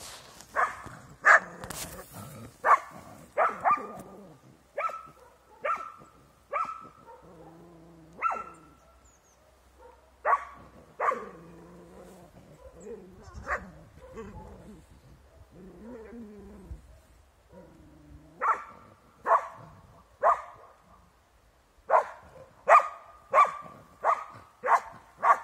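Young Styrian coarse-haired hound barking at wild boar: sharp single barks in runs of one or two a second, thinning out in the middle and picking up again near the end.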